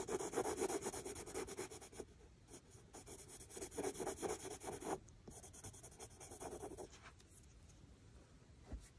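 Prismacolor Cream coloured pencil scratching on cartridge paper in rapid short strokes, in three runs, stopping about seven seconds in.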